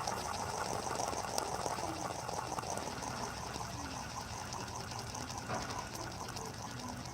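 Fidget spinner spinning right up against a microphone, giving a fast, even, whirring flutter.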